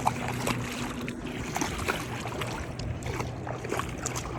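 Motorboat engine running as it passes out on the water, a steady low hum, with small scattered splashes and clicks of water at the shore.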